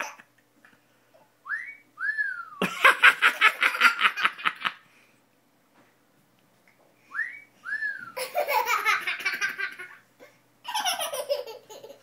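A handheld sound-effects toy plays a wolf-whistle effect twice: a short rising whistle, then one that rises and falls. Each time a toddler answers with loud, rapid belly laughter, the loudest sound, and laughs briefly once more near the end.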